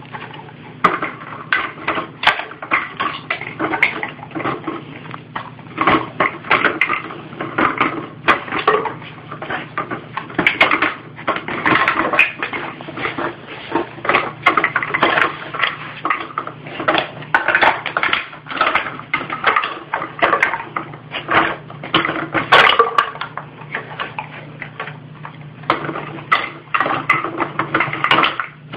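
Empty plastic PET bottles on a homemade treat-dispensing toy clattering and knocking as a bull terrier noses and turns them to get treats out. The knocks come irregularly and densely the whole time.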